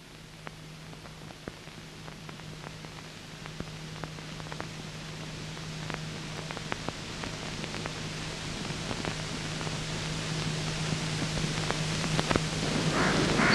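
Hiss and crackle of an old film soundtrack, with scattered sharp clicks and a steady low hum, growing steadily louder.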